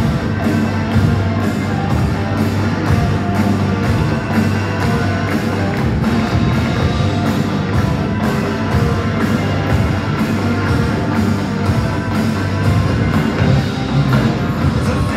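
A large band playing hard-rock music live, with a steady driving drum beat. This is an instrumental stretch with no singing.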